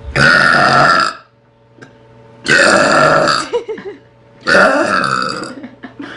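A young woman belching loudly three times in a row, each belch lasting about a second.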